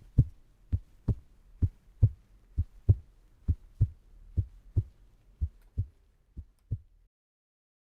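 Heartbeat: a steady lub-dub double thump a little under once a second, growing fainter and stopping about seven seconds in.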